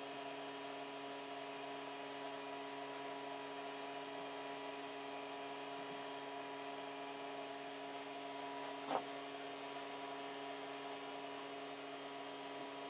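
Low, steady electrical hum with several fixed whining tones from the powered-on FlashForge Creator 3D printer, with one sharp click about nine seconds in.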